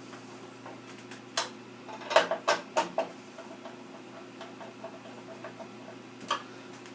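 Sharp clicks and taps of metal and plastic parts as the CPU heatsink retention bracket is tightened down on a computer motherboard: one click, then a quick run of four or five, and another near the end, over a faint steady hum.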